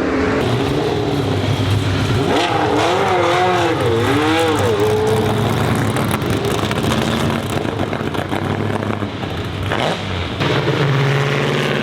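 A 1937 Mercedes-Benz W125's supercharged straight-eight engine running, its revs rising and falling several times a few seconds in.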